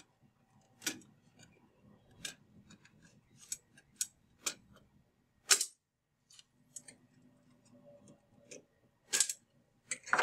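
Irregular sharp clicks and snaps of needle nose pliers compressing the snap-in standoffs that hold a battery charger's circuit board, with the loudest snap a little past halfway.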